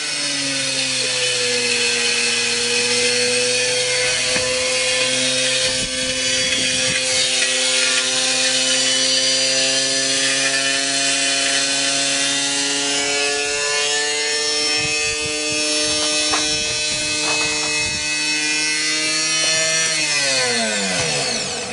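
Washing-machine motor, torn loose from its wrecked washer, running flat out with a steady whine and occasional rattles. About twenty seconds in it winds down, its pitch falling steeply as it finally dies.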